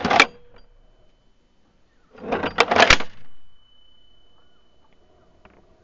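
Zastava M76 rifle's action being worked by hand: a sharp metallic clack at the start, then about two seconds in a clattering stroke of the charging handle ending in two sharp clacks as the bolt runs home and closes.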